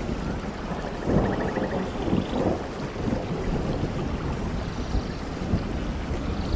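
Heavy rain pouring steadily, with low rumbling thunder beneath it and a few faint high trills above.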